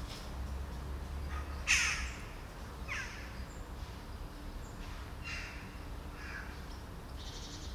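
Crow cawing several times, the loudest call a little under two seconds in, over a low steady background rumble.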